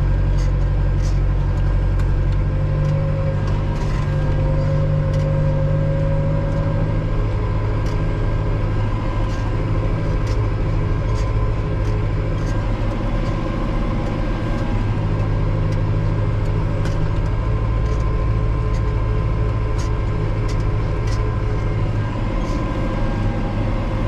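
Valtra N91 tractor's diesel engine running steadily under ploughing load, heard from inside the cab.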